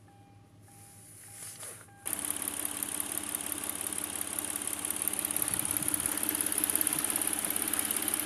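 Kia Opirus's 3.0-litre G6CT V6 idling, warmed up, with a steady running sound that comes in abruptly about two seconds in. Before it there is a faint, regularly repeated beep.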